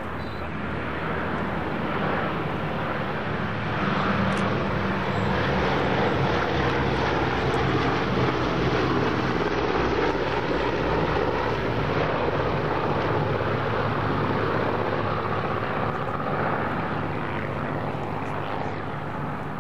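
A Boeing B-17G Flying Fortress's four Wright R-1820 Cyclone radial engines droning in a flypast. The sound grows louder over the first few seconds, holds, then fades away near the end.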